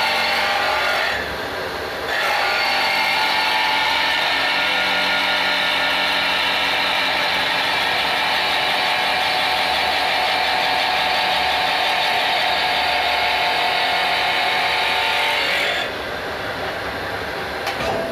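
A tool-post grinding wheel grinds the face of a truck clutch pressure plate spinning on a lathe, resurfacing it: a loud, steady, shrill grinding with a short break about a second in. About sixteen seconds in the grinding stops, leaving the machine motors running more quietly, with a few clicks near the end.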